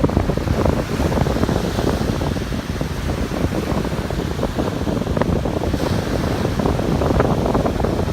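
Ocean surf washing on a beach with wind buffeting the microphone, a loud, steady, rumbling noise.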